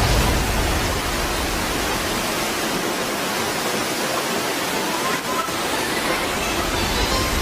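A steady, loud rushing noise spread evenly across low and high pitches, without any clear tone or rhythm.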